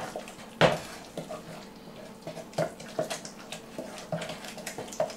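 A spoon stirring sugar into thick rice pudding in the top pot of a double boiler, knocking against the pot at irregular moments, the loudest knock a little under a second in.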